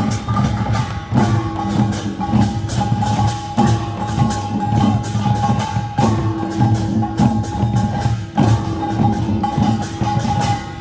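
Korean traditional folk percussion band playing a fast, dense rhythm, with a steady high note held over the beat and short breaks between phrases about every two and a half seconds.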